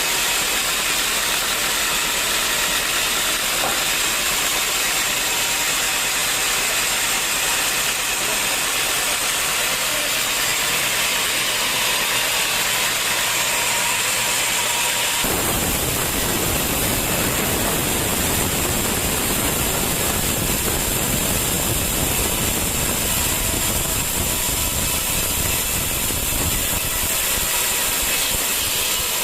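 Sawmill machinery running steadily with a loud hiss. About halfway through, a heavy low rumble comes in and fills out the sound, then eases again near the end.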